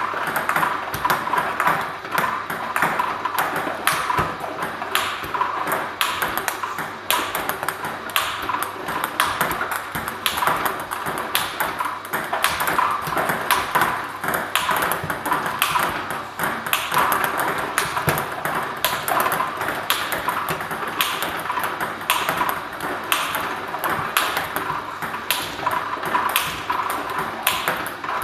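Table tennis balls clicking in a steady rhythm of about one ball a second. A ball-feeding robot fires backspin balls, each bounces on the table and is struck back with a carbon-blade racket into the catch net. A steady whir runs underneath.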